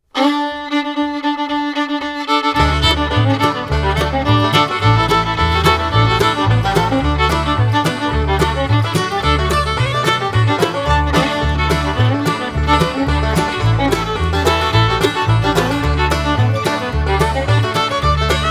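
Instrumental background music: a held opening chord, then a steady bass beat and fast melodic line come in about two and a half seconds in.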